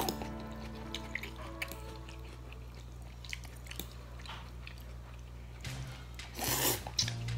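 Close-up eating sounds of noodle soup: short clicks and mouth sounds of chewing, with a louder slurp of noodles about six and a half seconds in, over quiet background music.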